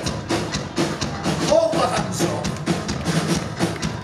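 Live rock band playing a fast song, with a drum kit beating a quick, even rhythm under electric guitars and bass.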